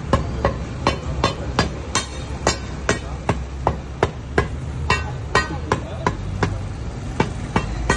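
Steel pry bars striking and scraping at the rim of a cast-iron manhole cover, a quick run of sharp metallic clanks, about two to three a second, as the stuck lid is worked loose.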